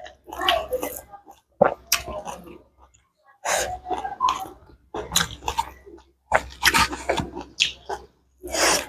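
Close-miked mukbang eating sounds: wet chewing and mouth smacking on spicy food in irregular bursts, with short pauses between mouthfuls.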